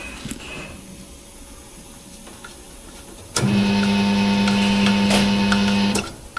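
Electric motor of a tyre-changer machine spinning the turntable, a steady whining hum that starts abruptly about three and a half seconds in and stops after about two and a half seconds. Faint handling sounds come before it.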